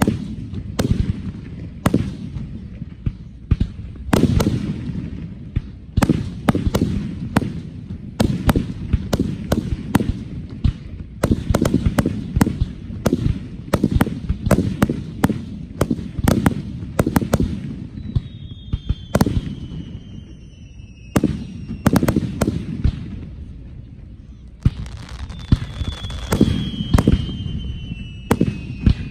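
Aerial fireworks display: shells bursting in quick, irregular succession, sharp bangs over a continuous low rumble. Twice, about two-thirds of the way in and again near the end, a high whistle slowly falls in pitch over a few seconds.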